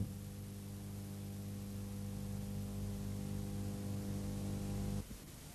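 Steady electrical mains hum with a buzz of evenly spaced overtones, cutting off suddenly about five seconds in.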